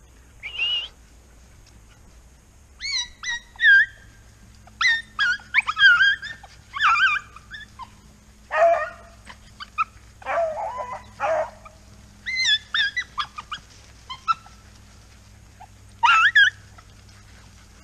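Hunting dogs yipping and whining in short, high calls that bend in pitch, coming in bursts, with a couple of lower, longer cries around the middle.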